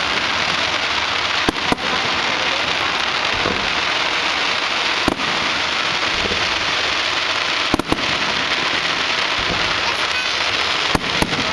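Aerial fireworks display: a continuous dense crackle of bursting stars, cut by sharp bangs about a second and a half in, at five seconds, a close pair near eight seconds, and two more near the end.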